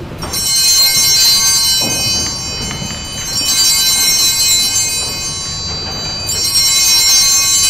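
Altar bells, a cluster of small bells shaken three times about three seconds apart, each ring ringing on and fading: the consecration bells at the elevation of the host.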